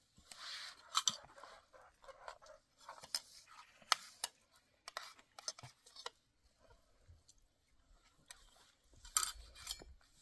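Scattered light clicks and taps, as of small objects being handled, with a soft rustling noise in the first second.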